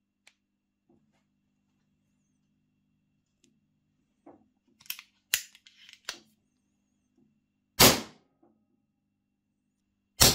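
Reximex PCP air pistol with a 3D-printed suppressor: a few light metallic clicks as it is cocked and loaded, then one sharp suppressed shot about eight seconds in, and another shot right at the end.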